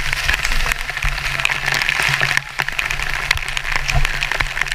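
Spray from Tumalog Falls showering down over the rocks in a steady hiss, with many sharp ticks of drops striking the camera close up.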